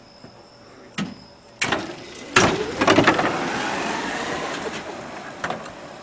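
1980 Comuta-Car electric car pulling away. A few sharp clicks come first, then a loud sudden onset, and a rising motor whine with rushing noise that fades over a few seconds.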